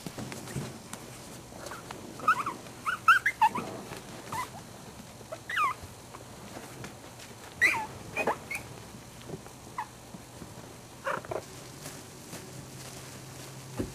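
A puppy whimpering in short, high squeaks that slide in pitch, coming in small clusters with pauses between them.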